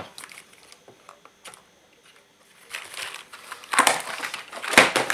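A clear plastic bag crinkling and rustling as it is handled, in several short bursts that grow louder toward the end, after a few small plastic clicks.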